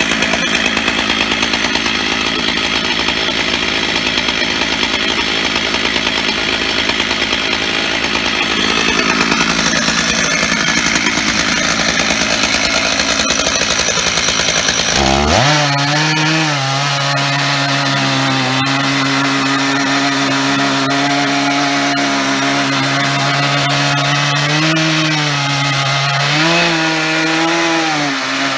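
Stihl 880 two-stroke chainsaw running at full throttle under load, ripping along an oak log in a chainsaw mill. About halfway through the engine note turns steadier and clearer, sagging slightly a couple of times near the end as the chain bites.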